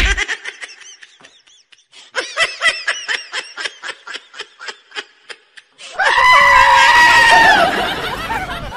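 Rapid short bursts of laughter, then a loud high-pitched scream held for about a second and a half that falls away at the end.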